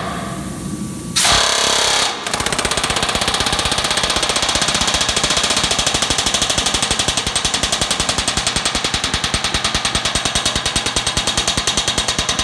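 Pneumatic rivet gun hammering a red-hot rivet into a steam boiler's mudring: a short burst about a second in, then after a brief pause a steady, rapid hammering that runs on.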